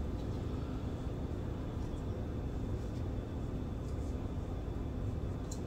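Steady low background rumble of room noise with no speech, broken by a few faint soft ticks.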